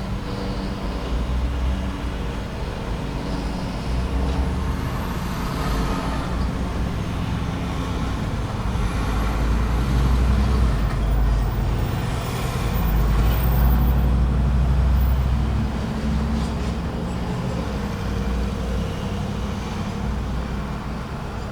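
Busy road traffic: heavy trucks, buses and cars rumbling through an intersection, with the rumble swelling as larger vehicles pass at about ten and again at about thirteen to fifteen seconds.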